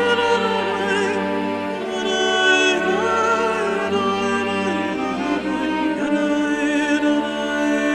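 Slow background music: sustained bowed strings and a wavering singing voice over a bass line that changes note about once a second.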